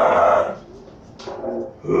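Harsh vocal noise from a noisecore recording, a loud shriek that cuts off about half a second in. A short weaker cry follows, then another loud one near the end.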